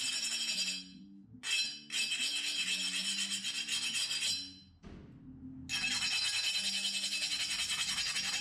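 Guitar playing in another room, sped up into a quick run of low notes, under dense high scratching as a wire brush scrubs forge scale off the hot steel cleaver blade. The scratching comes in three stretches with short pauses about a second in and around five seconds in.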